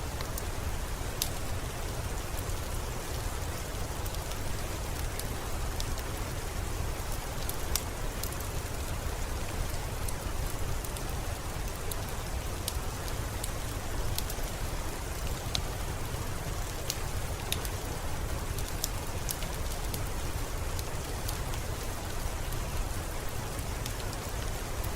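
Steady rain: an even hiss over a deep low rumble, with scattered sharp ticks of individual drops striking.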